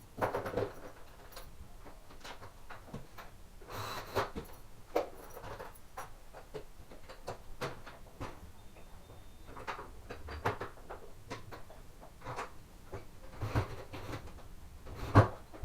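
Scattered clicks and knocks of door lock hardware and hand tools, as a replacement gearbox in a door's multipoint lock is fitted and worked.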